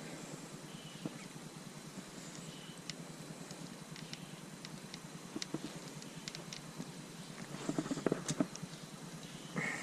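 Light clicks and taps from hand work with tools and small parts, over a steady background hiss, with a cluster of louder knocks about eight seconds in.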